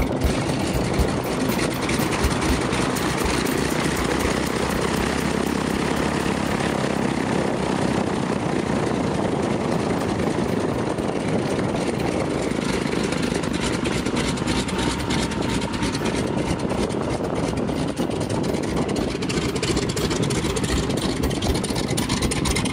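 Stearman biplane's radial engine running steadily, propeller turning, as the plane taxis.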